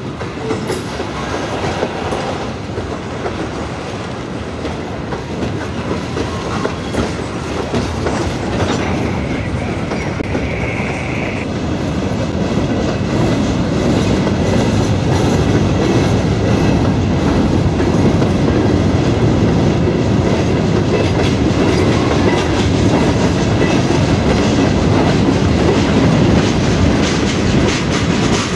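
Freight cars of a passing train rolling by close up: steel wheels clattering and clicking over the rail joints, growing gradually louder. A high steady tone sounds for about three seconds around nine seconds in.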